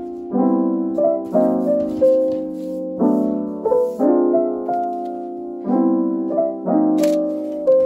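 Background music: a soft piano playing slow repeated chords with a simple melody on top, coming in right at the start. A faint light click sounds near the end.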